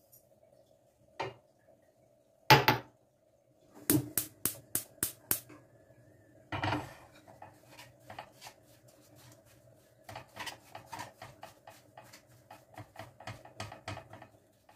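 Dishes and kitchenware being handled: clattering and clinking, with a quick run of six sharp clicks about four seconds in and a string of lighter clinks in the second half, over a faint steady hum.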